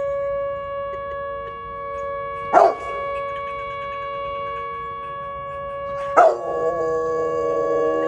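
Outdoor tornado siren sounding a steady wailing tone. A Rottweiler gives a single bark about two and a half seconds in and another about six seconds in, then starts howling along with the siren near the end.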